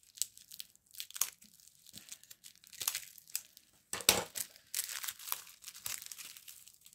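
Plastic packaging crinkling and tearing in irregular bursts as it is pulled off a small magnet by hand, busiest about four seconds in.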